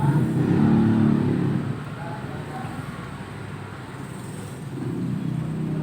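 A motor vehicle engine running, louder in the first second and a half and again near the end.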